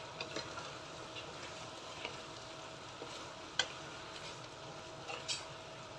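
Chicken wings and potatoes sizzling in adobo sauce in a wok while a wooden spatula stirs them, with a steady frying hiss and a few sharp knocks of the spatula against the pan, the loudest about three and a half seconds in.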